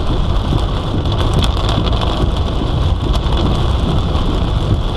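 Rain on a moving car, with a steady low road and engine rumble heard from inside the cabin.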